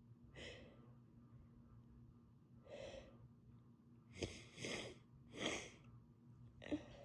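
A woman with a cold breathing in hitching gasps as a sneeze builds. There are two soft breaths in the first three seconds, then three sharp, breathy bursts in quick succession about four to five and a half seconds in, and one more sharp one near the end.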